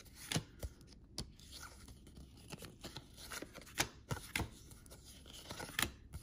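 1992-93 SkyBox basketball trading cards being handled and flipped through: irregular sharp clicks and light rustling as the cards slide and flick against each other.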